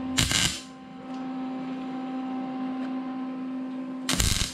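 MIG welder tack-welding a sheet-metal patch panel into place: two short crackling bursts of the arc, one just after the start and one about four seconds later. A steady hum runs between them.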